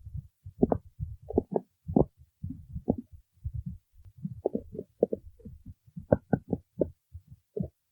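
Cartoon stomach-growl sound effect: a run of short, irregular low gurgles, several a second.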